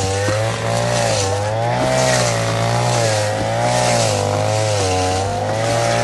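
Small engine running at high revs, a steady whine whose pitch wavers slowly up and down about once a second.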